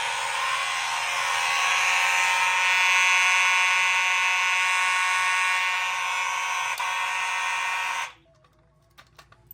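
Several Simplex fire alarm horns sounding together as one continuous, dense buzzing blare that cuts off abruptly about eight seconds in, followed by a few faint clicks.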